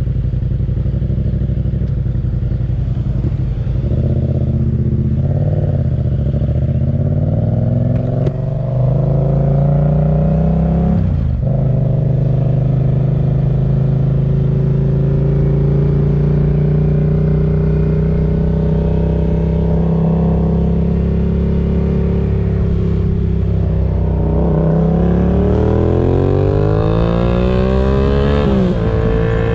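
Motorcycle engine under way: revs climb and drop back at gear changes about eight and eleven seconds in. It then holds a steady cruise and climbs again before another shift near the end.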